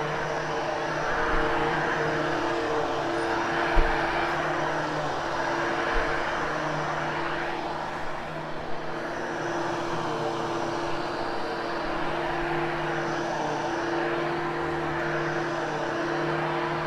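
Hoover Hushtone upright vacuum cleaner running steadily on carpet, a motor hum with a rushing whoosh whose pitch shifts slightly as it works. Two brief low thumps about four and six seconds in.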